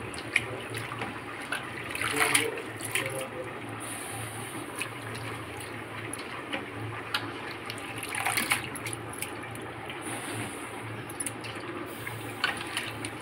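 Water running steadily from a kitchen tap, with a few knocks and clatters.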